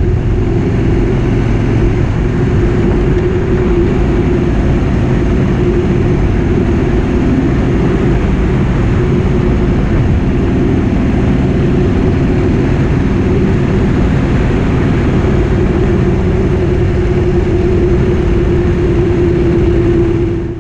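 2017 Harley-Davidson Road King's Milwaukee-Eight 107 V-twin with its stock exhaust, running steadily at cruising speed. It is recorded by a camera's built-in mic behind the windshield.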